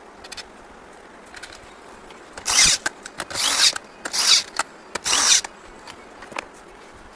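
Four short bursts of a hand power tool running, each about half a second long and roughly a second apart, with small clicks between them.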